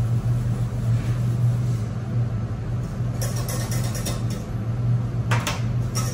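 Steady low machine hum, with a utensil scraping and clinking in a stainless saucepan from about three seconds in as sugar and corn flour are stirred in.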